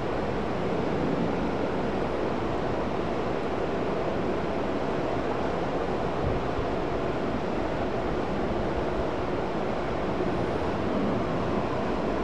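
Steady rushing wind noise on the microphone, with a low fluttering rumble underneath.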